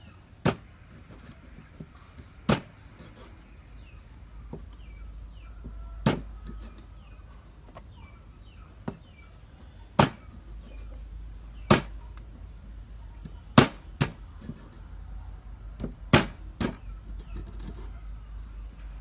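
A cleaver chopping on a thick round wooden chopping block: single sharp knocks at uneven intervals of one to four seconds, coming closer together in the second half.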